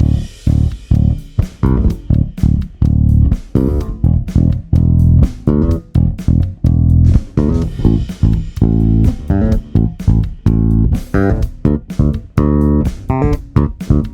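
Electric bass with EMG 40DC and Aguilar OPB-2 pickups, played unaccompanied in a busy line of short, clipped notes, several a second.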